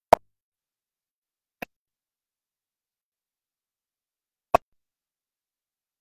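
Three short, sharp clicks in otherwise dead silence: one at the very start, a faint one about a second and a half in, and a loud one about four and a half seconds in.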